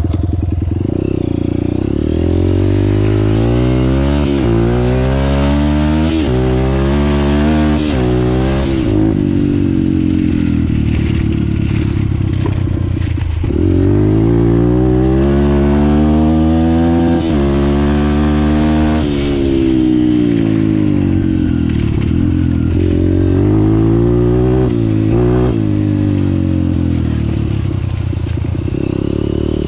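2009 Honda CRF150F dirt bike's four-stroke single-cylinder engine under way, revving up through the gears several times, its pitch climbing and then dropping at each shift, with stretches of steadier, lower-rev running between.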